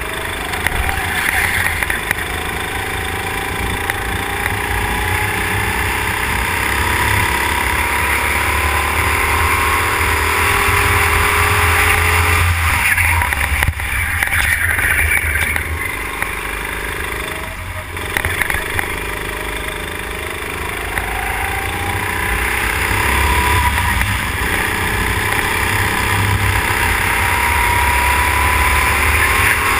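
Go-kart engine heard from an onboard camera, its pitch climbing steadily as the kart accelerates and dropping sharply when the driver lifts off for corners, about 13 and 18 seconds in, before climbing again.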